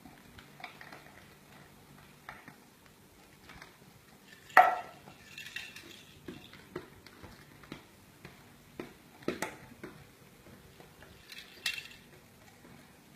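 Scattered small knocks and clatters of plastic toys and a plastic bottle being handled and dropped on a bamboo mat, the loudest a sharp clack about four and a half seconds in.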